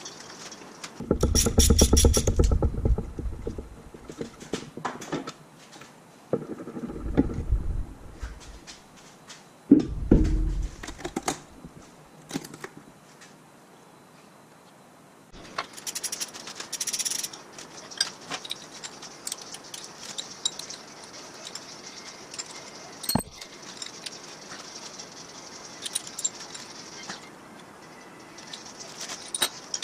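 Hand tools working nuts and bolts on a cast-iron Ford flathead V8 block: ratchet clicking, metal clinking and tools being set down. Three louder low-pitched bursts come in the first eleven seconds.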